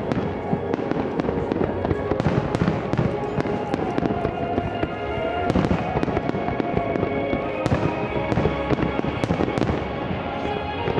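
Fireworks display heard from about a kilometre away: a dense, unbroken run of overlapping shell bursts and crackling reports, with music playing underneath.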